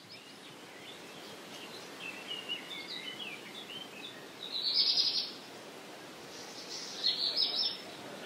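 Birds chirping over steady low background noise that slowly rises at the start. Two louder, rapid chattering calls come about halfway through and again near the end.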